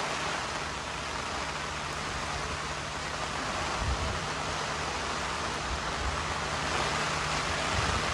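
Steady rain hissing, with a few low gusts of wind buffeting the microphone from about the middle on.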